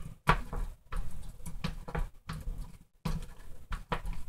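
Handling noise from an SC10 short course RC truck being worked on by hand: a string of irregular light clicks and knocks of plastic and metal parts as fingers work the screws and parts at the front shock tower.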